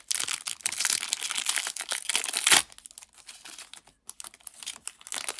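Foil wrapper of a Pokémon Astral Radiance booster pack crinkling as hands pull the torn-open pack apart, dense for the first couple of seconds with one loud crackle about two and a half seconds in, then quieter, sparser crinkles.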